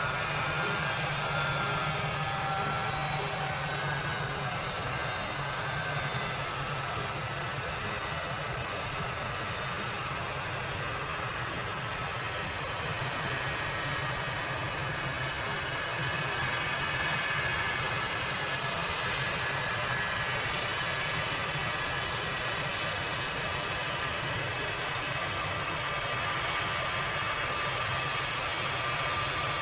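Jet engines of a large high-wing military transport aircraft running at low, taxi-level thrust as it rolls along the ground: a steady rumble with thin, steady whine tones above it.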